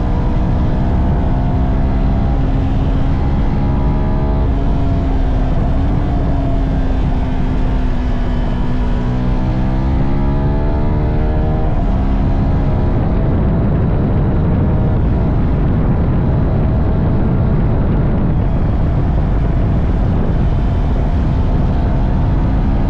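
CF Moto 300NK's single-cylinder engine with its stock exhaust, under way. The engine pitch climbs, drops sharply at an upshift about four seconds in, climbs again and drops with another shift about twelve seconds in, then runs at a steadier pitch under a heavy low rumble.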